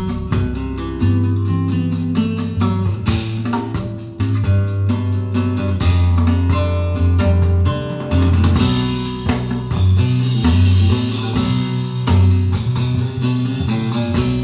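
Guitar-led music with a heavy bass line, played through a pair of Dali Ikon 5 mk2 loudspeakers and recorded in the room.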